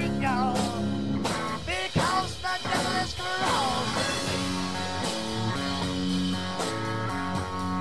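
Background rock music with guitar and drums.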